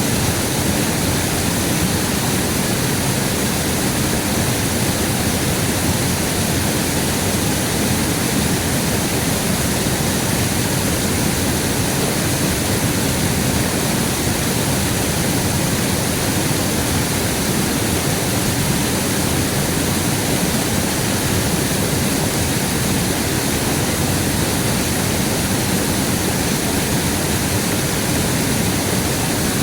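Steady, loud rushing of flowing river water, unchanging throughout.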